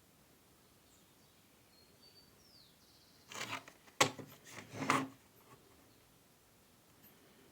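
A short spell of rustling and scraping, with one sharp click about four seconds in, over faint high chirps.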